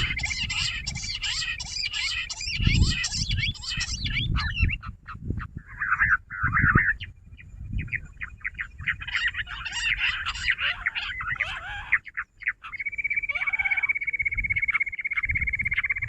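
A flock of jungle bush quail calling in a rapid, chattering chorus that comes in bursts, with a steady buzzing high tone setting in near the end. Low rumbles and thumps run underneath.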